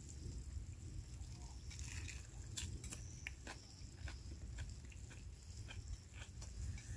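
A man munching food, chewing with a run of crunchy clicks from about two seconds in.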